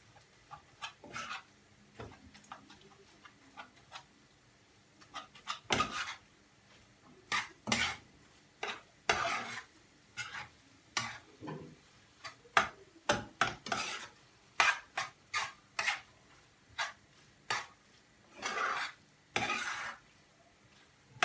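Spoon scraping and knocking against a frying pan as ground meat and vegetables are stirred and mixed together: irregular clinks and short strokes, with a few longer scrapes near the end.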